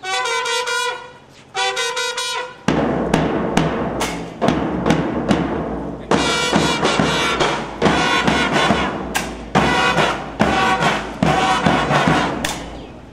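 Brass-and-drum band music: two short brass phrases, then from about three seconds in, drums beating a steady march with brass playing over them.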